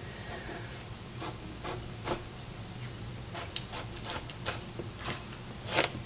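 Large kitchen knife cutting into a whole watermelon on a wooden cutting board: a run of short, irregular crackles and scrapes as the blade works through the rind, the loudest near the end.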